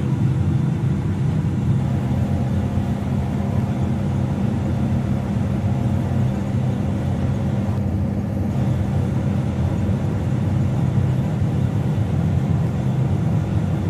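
Combine harvester running steadily, heard from inside the cab: an even engine and machinery drone with a low hum.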